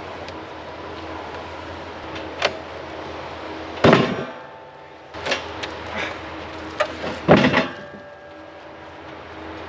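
Wood-Mizer sawmill running with a steady hum, while several knocks and two loud clanking impacts, about four and seven and a half seconds in, come from work on the log.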